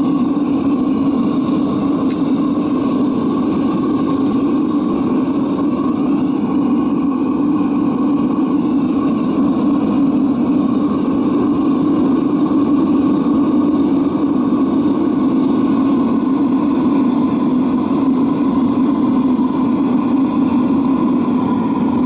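Diesel-fuelled foundry furnace burner running with its air blower, a loud, steady roar of forced-air combustion that holds even throughout.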